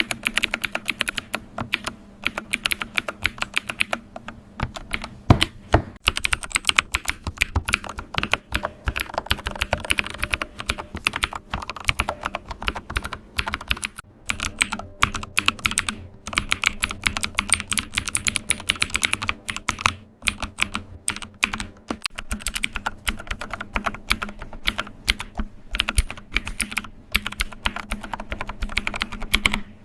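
Computer keyboard being typed and tapped: fast, irregular clicking keystrokes, with a few short pauses in the typing.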